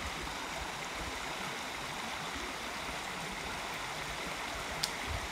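Shallow rocky creek running steadily over small rapids. There is one short sharp click near the end.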